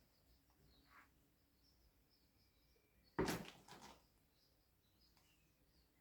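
Mostly near silence with faint bird chirps. About three seconds in there is one short, sudden knock, with a smaller one just after it.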